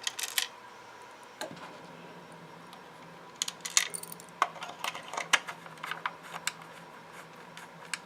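Irregular small clicks and taps of a long Phillips screwdriver and metal screws against the hard plastic body of a 1995 Thinkway Buzz Lightyear toy as it is screwed back together, busiest from about three seconds in to about six and a half.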